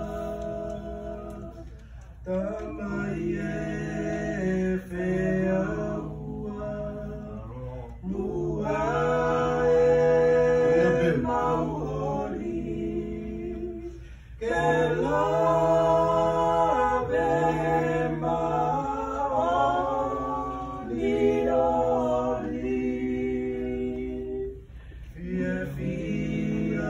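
A group of voices singing a hymn in harmony. Held chords come in phrases a few seconds long, with brief pauses between them.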